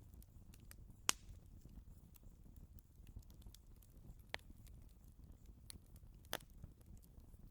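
Wood fire in a fireplace crackling faintly, with scattered small ticks and three sharper pops, about a second in, past four seconds and past six seconds, over a low rumble.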